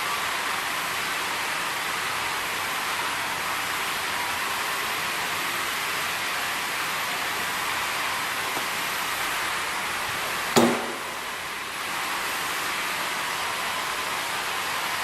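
Steady hiss, with a single sharp metallic clank about ten and a half seconds in that rings briefly: a metal engine part or tool knocked against the bench while the cylinder head's valves are being taken out.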